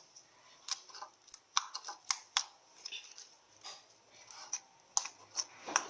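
Slime being kneaded and squeezed in the hands, giving off sharp little clicks and pops at irregular intervals, about a dozen in all.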